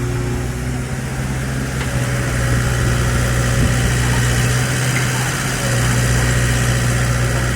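Excavator's diesel engine running at a steady speed, a deep even hum that swells slightly about two seconds in and again near the end.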